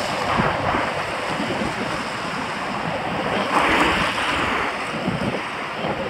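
Wind buffeting the microphone of a moving camera: a steady rushing noise, a little louder about three and a half seconds in.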